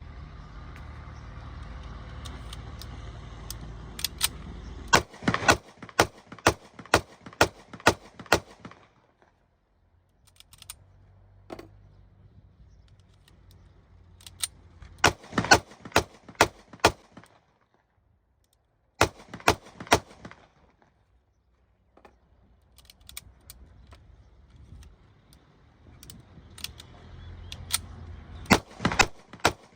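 .30 bore (7.62×25 mm) semi-automatic pistol fired in quick strings of single shots, about two to three a second, with short pauses between strings. Wind rumbles on the microphone during the first few seconds.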